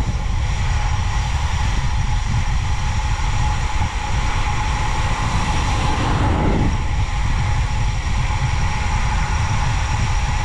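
Heavy, steady wind rumble on the microphone of a camera riding on a road bike on a fast downhill descent. A car passes close alongside about six seconds in.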